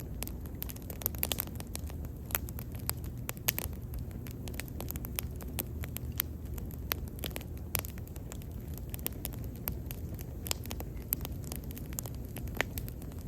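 Wood bonfire burning, with many sharp, irregular crackles and pops from the burning wood over a steady low rumble of the flames.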